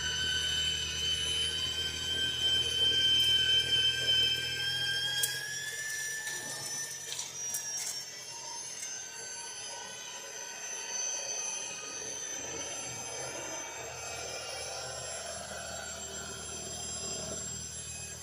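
EGO battery-powered two-stage snowblower running, its electric motor and auger drive giving a high-pitched whine. The whine rises slightly in pitch about five seconds in, then weakens under a rougher hiss.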